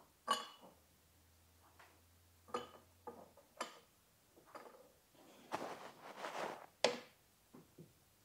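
Light metallic clicks and knocks as a camshaft bridge is seated on a KTM 390 engine's aluminium cylinder head, the parts tapping as they are fitted. The loudest clicks come just after the start and near seven seconds in, with a short scraping rustle just before the second one.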